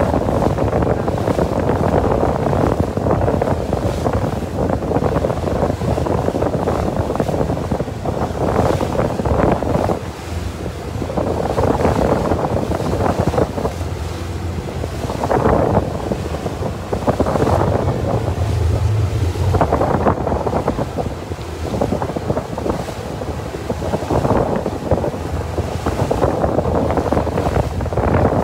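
Wind buffeting the microphone on a moving small boat, rising and falling in gusts, over water rushing and splashing in the boat's wake. A low, steady hum of the boat's motor runs underneath.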